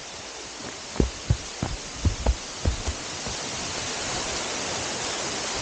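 Rushing water of a small waterfall, a steady hiss that swells as it gets closer, with a few low thumps in the first half.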